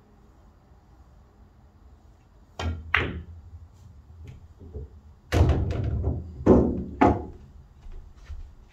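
Pool balls on a pool table: a pair of sharp clacks about two and a half seconds in, then a longer low rumble of rolling balls with several hard knocks, the loudest two near the end.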